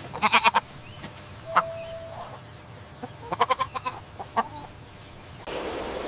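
Young goat (kid) bleating twice, each a short quavering call made of rapid pulses, about half a second long.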